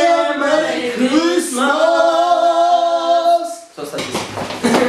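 Voices singing loud, long held notes with no accompaniment, breaking off a little before four seconds in; a brief noisy stretch follows near the end.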